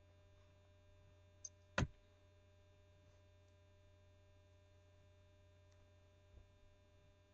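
Near silence: a steady low electrical hum, with two brief knocks close together just under two seconds in.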